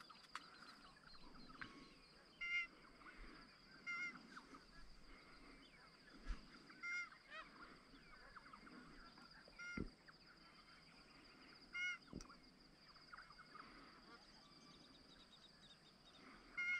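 Magpie geese honking in flight, faint and distant: about half a dozen separate short honks spread a couple of seconds apart.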